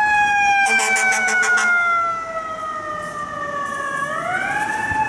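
Fire truck's mechanical siren, slowly winding down in pitch and then spinning back up near the end, with a short run of rapid horn blasts about a second in.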